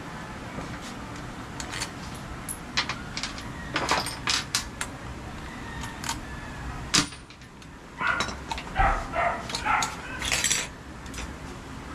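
Metal tools and engine parts clinking and tapping in irregular sharp clicks as a Honda XR200 engine is taken apart, busiest from about 8 seconds in.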